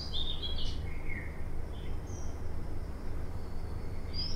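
Small birds chirping in quick, short, gliding calls, mostly in the first second or so and again near the end, over a steady low hum.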